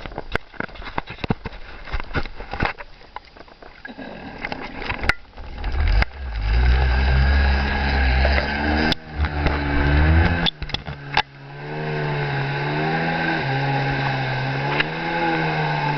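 Jet ski engine running and revving, its pitch rising and falling, after a few seconds of scattered knocks and clicks. A loud low rumble sits under the engine from about six to ten seconds in.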